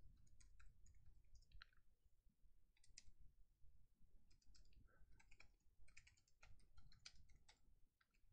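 Faint computer keyboard typing: an irregular run of light key clicks as a short sentence is typed.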